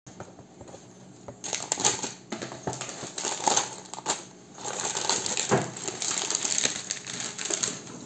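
Sealed plastic bags of small Mega Construx plastic bricks being handled: crinkling of the bags mixed with clicking and rattling of loose pieces inside. It starts about a second and a half in.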